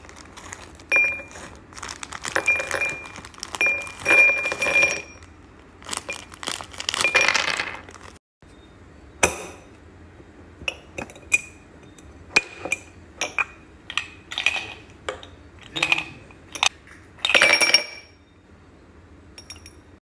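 Almonds and whole walnuts clattering into ceramic bowls and knocking against a glass jar. A run of dense rattles comes first, then separate sharp clinks at a little under a second apart, some with a short high ring.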